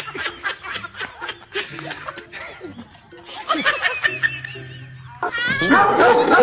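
Laughter over background music with a bass line, getting louder about a second before the end.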